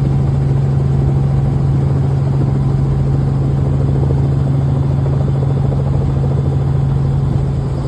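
Helicopter running, heard from inside the cabin: a loud, steady engine-and-rotor drone with a strong low hum.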